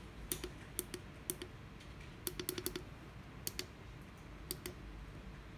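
Front-panel push buttons of a Maxwell FT200 PID temperature controller clicking as they are pressed to scroll its parameter menu and set a value: about a dozen light clicks in irregular groups, with a quick run of presses near the middle.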